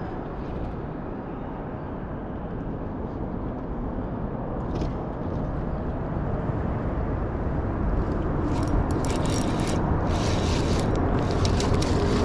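Steady outdoor wind and water noise, slowly getting louder, with a run of short hissy splashing bursts in the last few seconds.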